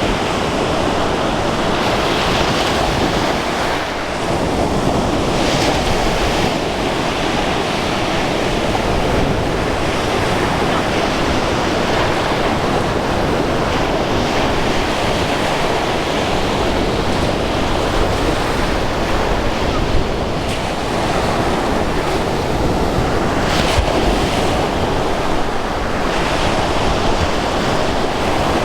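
Sea waves breaking and washing on the shore, a steady surf with occasional louder swells, with wind buffeting the microphone.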